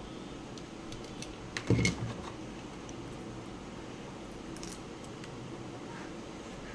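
Handling noises over a steady low hum: a quick cluster of clicks and a knock about two seconds in, with a few faint clicks scattered through the rest.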